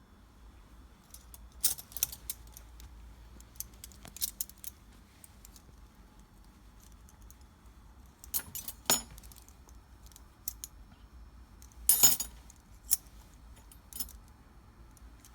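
Metal teaspoons clinking against each other as they are handled during polishing: scattered sharp clinks, the loudest cluster about twelve seconds in.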